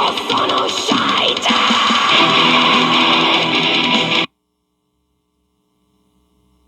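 Metal music from a CD, with dense distorted electric guitars, cutting off abruptly about four seconds in to silence, as at the end of a track.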